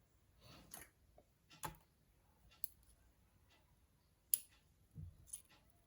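Faint, irregular small metal clicks and taps from tweezers handling the pins of a disassembled Assa euro cylinder lock, about six in all, the sharpest about four and a half seconds in.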